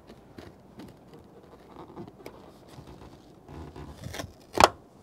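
Light rustling, scraping and small clicks of hands working a plastic window deflector into a pickup's door, then a loud sharp knock near the end and a second, smaller one just after.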